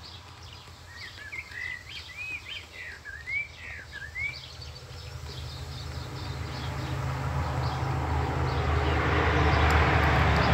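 A bird chirps a quick series of short rising-and-falling notes for a few seconds. Over the second half a rushing noise with a low rumble swells up and holds, the loudest sound here.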